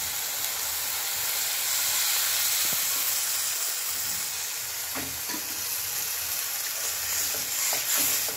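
Ground coconut curry paste sizzling with a steady hiss in a hot aluminium pan as water is poured in and stirred, with the metal ladle knocking against the pan a few times.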